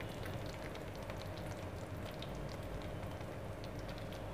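A thick khoya-and-sugar mixture, roasted pink, is faintly sizzling in a non-stick pan on low heat, with scattered small crackles and pops over a faint steady hum.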